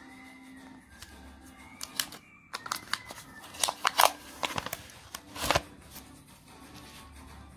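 A paper-wrapped roll of 2-euro coins being torn open, with the wrapper crackling and the coins clicking together in the hand: a cluster of sharp clicks and rustles, loudest about four and five and a half seconds in. Soft background music runs underneath.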